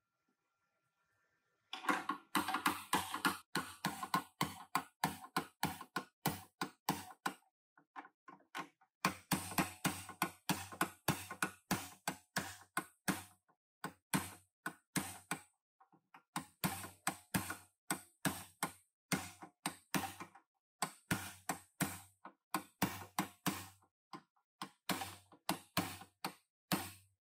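Ratchet wrench clicking at about four clicks a second in runs of several seconds, with short pauses, as it is worked back and forth on a clamp fitting at the end of a car's rear frame rail.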